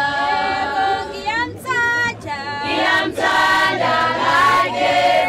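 A group of voices singing together without instruments, high women's voices prominent, some sliding up in pitch.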